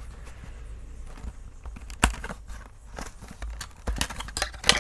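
A small cardboard box being opened: a blade cuts its clear plastic seal and the lid flap is pried up. Scattered sharp clicks, scratches and crackles of plastic and cardboard, with one about two seconds in and a quick cluster near the end.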